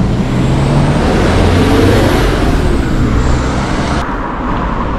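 A motor vehicle passing close on the road, its engine and tyre noise swelling to a peak about two seconds in and fading, over a steady rush of road noise; the high hiss drops away near the end.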